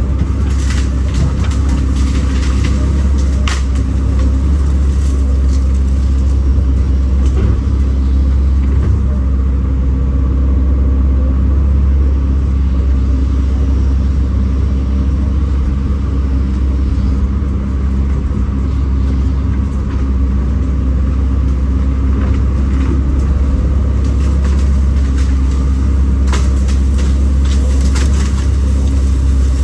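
Kobelco SK210 excavator's diesel engine running steadily with a deep, constant hum, with a few sharp knocks about three seconds in and again near the end.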